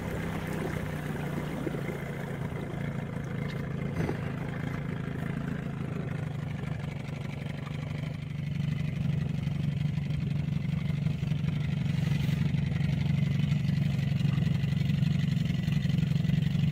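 1982 Evinrude 15 hp two-cylinder two-stroke outboard running steadily as it pushes an inflatable dinghy, growing louder about eight seconds in.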